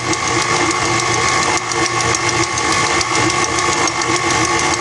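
KitchenAid stand mixer's motor running steadily with its dough hook kneading a soft yeast dough in a glass bowl: a constant, even motor hum.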